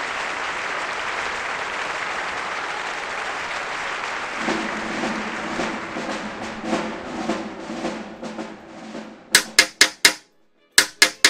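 Applause that thins out into scattered single claps, with a few low held instrument notes under it, then sharp taps in two quick groups of four with a short silence between.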